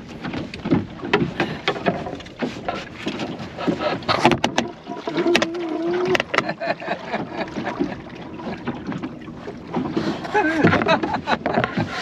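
Goat Island Skiff, a small sailing dinghy, going through a tack: an irregular run of knocks and rattles from the boat's gear and its handling, the sharpest about four and six seconds in.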